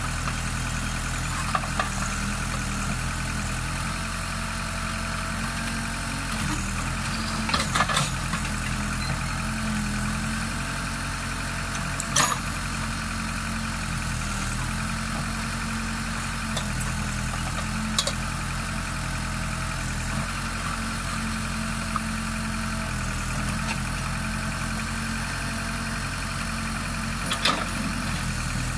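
Case backhoe's diesel engine running steadily, with a few sharp knocks several seconds apart.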